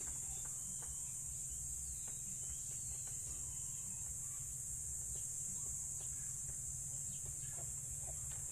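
Steady high-pitched drone of insects, with faint scattered clicks over a low steady hum.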